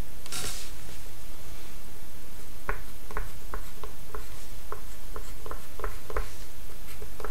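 Pencil on drawing paper drawing a dashed hidden-detail line along a set square: a brief scratchy stroke near the start, then a run of short ticks at about two a second as each dash is put down.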